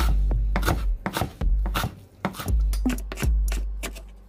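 A kitchen knife finely chopping blanched seri (Japanese parsley) on a wooden cutting board: sharp, irregular knocks about two or three a second. Background music with deep bass notes plays underneath.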